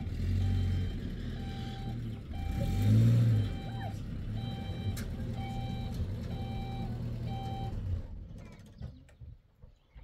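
Vehicle engine running with a reversing alarm beeping about once a second. The engine swells louder briefly about three seconds in. Engine and beeping stop about eight seconds in.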